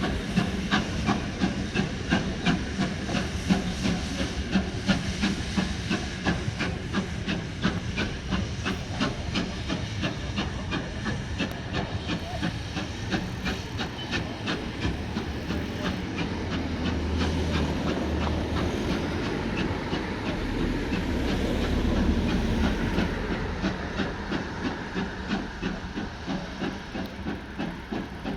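Steam train on the move: a steady rhythmic clatter with a hiss of steam. A deeper rumble swells in the middle and fades again.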